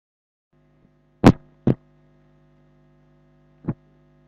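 Faint mains hum from a handheld microphone, starting about half a second in, with three sharp knocks from handling the microphone: a very loud one about a second in, a second just after, and a weaker one near the end.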